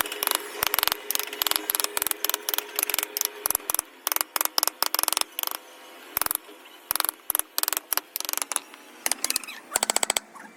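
Hand wood carving: a mallet tapping a carving chisel into wood in quick, irregular sharp knocks, with a rapid flurry of taps near the end.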